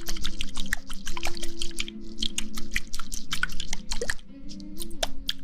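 Dense, irregular wet crackling and squishing clicks close to the microphone, an ASMR trigger sound. The clicks thin out a little after four seconds, over a faint steady tone underneath.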